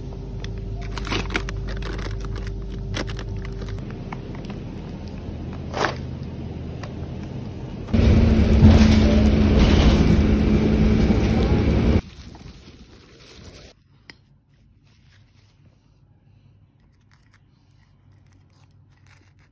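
Supermarket freezer-aisle ambience with a low hum and the clicks and rustles of packages being handled. About eight seconds in it gives way to louder steady bus cabin noise with the engine's drone. This cuts off about four seconds later and leaves a quiet room.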